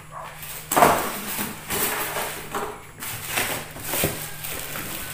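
Unboxing handling noise: a foam packing insert is pulled out of a cardboard box, then the plastic wrapping around the speaker rustles and crinkles under the hands. There is a louder knock about a second in.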